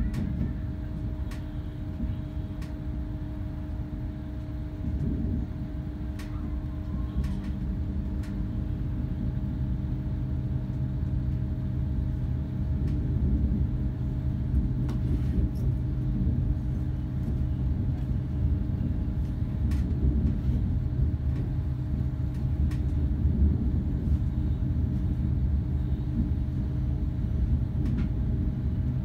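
Cabin sound of a Hitachi intercity train moving through a station: a steady low rumble from the wheels and running gear with a constant hum, and occasional sharp clicks.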